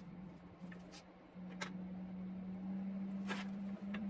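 Steel tube being handled and fitted against a scooter frame with leather-gloved hands: a few light clicks and a short rustle, over a steady low hum.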